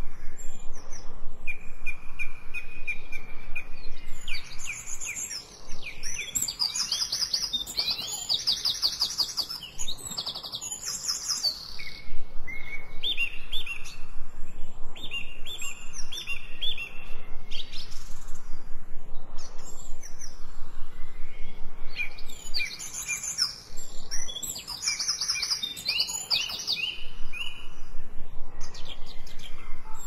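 Songbirds singing: fast high trills and runs of quick repeated chirps, in phrases with short lulls between them.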